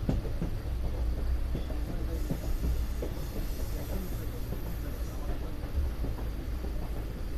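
Passenger train coaches running along the track, heard from an open window: a steady low rumble with irregular clicks and knocks from the wheels on the rails.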